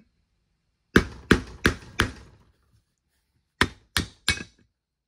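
A steel hammer strikes the end of a Versamatic drill speed reducer's housing, which sits on a brake rotor. There are seven sharp metal-on-metal blows: a run of four, about three a second, a short pause, then three more. The blows are driving the pressed-in planetary ring gear out of the cast aluminum housing.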